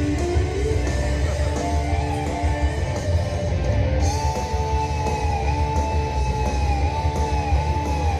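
Live rock band playing, led by electric guitar over a heavy low end. About halfway through, a long held, wavering high guitar note comes in.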